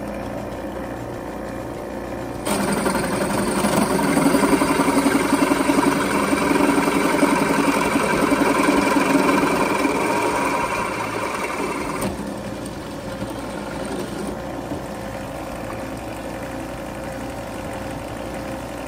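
Drill press running steadily. For about ten seconds from a couple of seconds in it grows louder and rougher as the bit cuts through a small metal part held in a drill-press vise.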